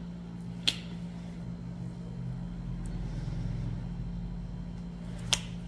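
A steady low mechanical hum, with two sharp clicks: one under a second in and one near the end.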